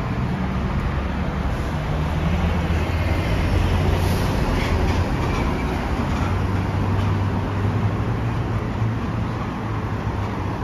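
City street traffic: a motor vehicle engine running close by with a steady low hum over continuous road noise.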